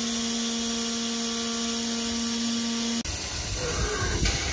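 Oscillating (vibrating) knife head of a CNC router running with a steady hum, cutting off suddenly about three seconds in.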